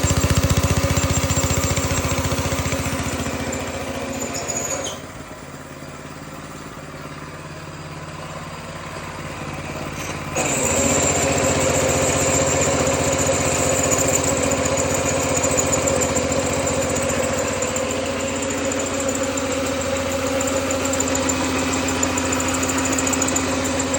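Small gasoline engine of a 25-inch California Trimmer mower running steadily. About five seconds in it drops to a quieter, lower running, then about ten seconds in it comes back up sharply and holds steady.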